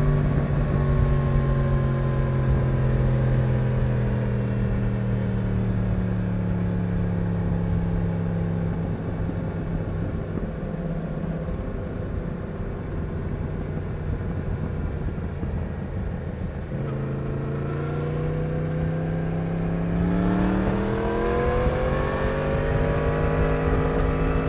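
Stock Yamaha MT-10's crossplane inline-four running on the road with the stock exhaust. Its pitch sinks slowly as the bike rolls off the throttle, then the engine note drops away for a few seconds around the middle. It comes back and rises as the bike accelerates, then holds steady near the end.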